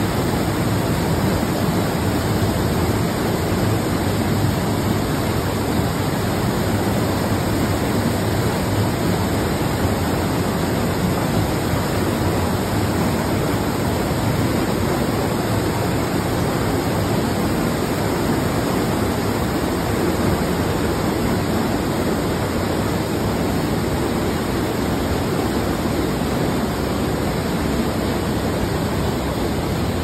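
The River Lyd's small waterfall pouring into a churning pool in a narrow rock chasm: a loud, steady rush of falling water.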